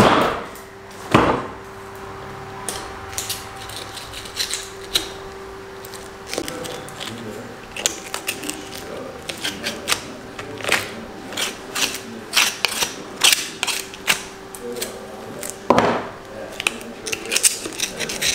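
Butcher handling and cutting a bone-in beef rib section on a cutting table. There are heavy thuds as the meat is set down, right at the start, about a second in and again near the end. Between them come irregular clicks, knocks and scrapes as he works the ribs with a knife, over a faint steady hum.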